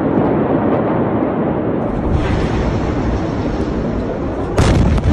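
The Beirut port explosion, a huge ammonium nitrate blast, recorded on a phone's microphone: a steady, dense rushing noise with faint crackles, then about four and a half seconds in the blast wave arrives as a sudden very loud boom that overloads the recording and keeps rumbling.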